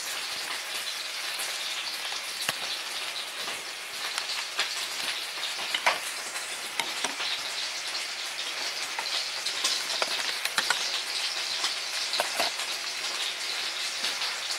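A chicken fillet sizzling in a frying pan: a steady hiss with scattered crackles and pops.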